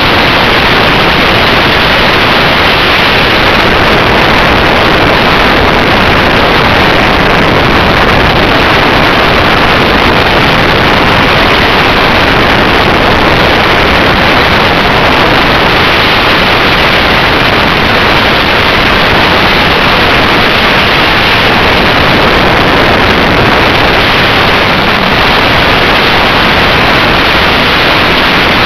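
Loud, steady rushing hiss picked up by the mini spy camera riding on an RC flying wing in flight, with no clear motor tone and no separate events.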